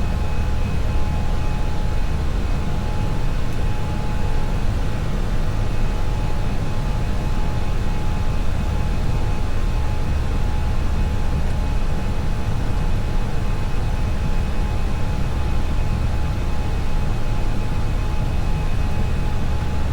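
Steady flight-deck noise of a CFM56-5B4-powered Airbus A320 in the climb at climb thrust: a dense, even rumble of airflow and engine noise, strongest in the low end, with a few faint steady whines above it.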